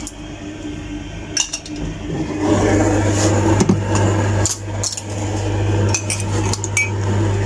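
Dishes clinking and knocking: a metal tea strainer, glasses and a cup being handled on a stainless steel tray, several separate clinks over a steady low hum that grows louder about two and a half seconds in.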